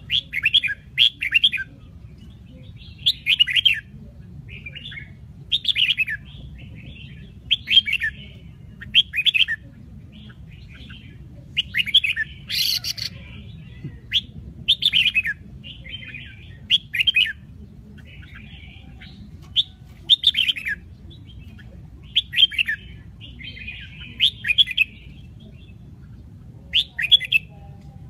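Caged red-whiskered bulbul singing short, bright warbled phrases, one every second or two, over a steady low background rumble.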